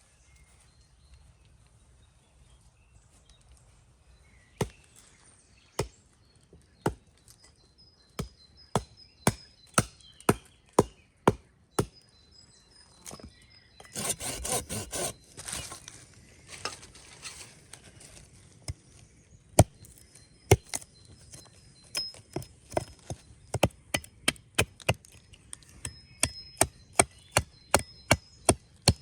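Repeated chopping blows on wood, sharp separate strikes that come about once a second at first and quicken to two or three a second near the end. About halfway through there is a short stretch of dense crackling noise.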